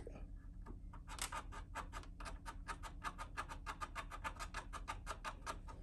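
A marker scribbling back and forth on the back of a truck grille shell to make a drilling mark: a run of quick, faint scratching strokes, about seven a second, starting about a second in and stopping near the end.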